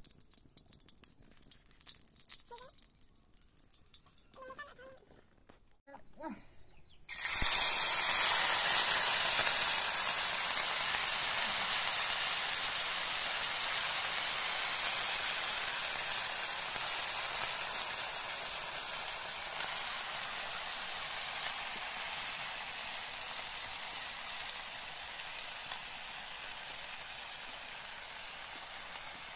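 Small fish dropped into hot oil in a wide black pan: a sudden loud frying sizzle starts about a quarter of the way in and slowly eases off as the fish cook.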